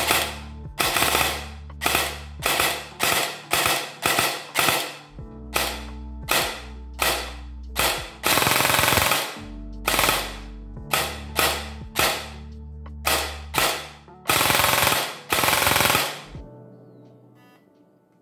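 Rossi Neptune AEG airsoft rifle firing: a string of single semi-auto shots at about two a second, broken twice by a sustained full-auto burst of about a second and a half, as the ETU 3.0 electronic trigger's programmed fire modes are tried out.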